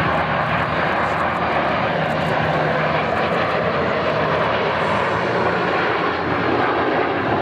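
Formation of Dassault/Dornier Alpha Jets flying past, their twin turbofan engines giving a steady, even jet noise.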